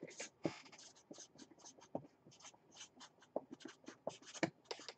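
Marker pen scratching across a cardboard box lid in quick, irregular strokes as a name is written; faint.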